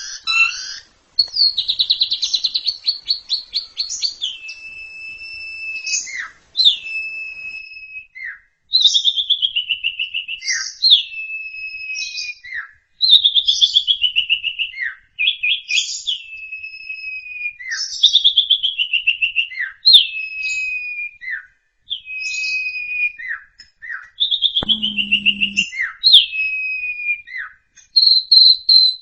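Asian pied starling (jalak suren) singing loud, clear whistles. A rapid trill opens, then a whistled phrase that slides down in pitch repeats about every two seconds, each one ending in short downward notes. A brief low hum sounds near the end.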